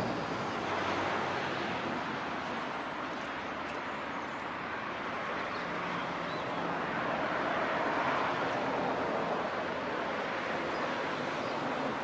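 Steady outdoor background rush with no distinct events.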